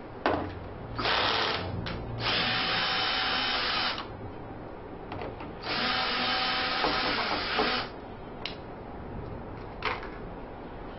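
Power drill running in three runs of a second or two each, loosening the screws of the hose clamps on a furnace's vent elbow and coupling. There are a few short clicks between the runs.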